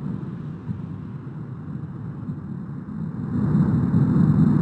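Low, continuous roar of the 2021 La Palma (Cumbre Vieja) eruption's vent while it fountains lava. The roar eases a little through the middle and swells louder about three seconds in.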